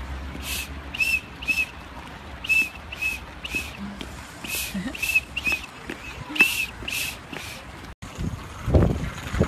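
A small whistle blown in a dozen or so short toots, each a brief chirp. About eight seconds in, this cuts to the low rumble of a child's kick scooter's wheels rolling over brick paving.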